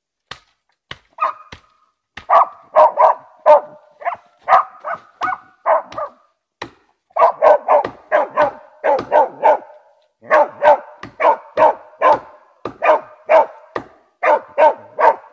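Russian-European laika barking in quick runs, about two to three barks a second with short pauses, starting about two seconds in: a hunting dog baying at a raccoon dog holed up in a pile of fallen logs. A few light clicks come before the first barks.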